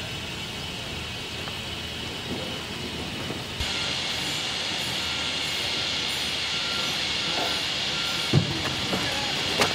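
Steam hissing steadily from a plank-steaming box where a thick oak plank is being steamed soft for bending, louder from about a third of the way in. A single knock comes near the end.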